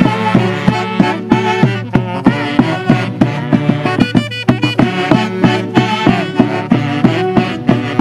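Huancavelican Santiago folk music from a brass orquesta: saxophones carry the tune over a steady drum beat. The band drops out briefly about halfway through.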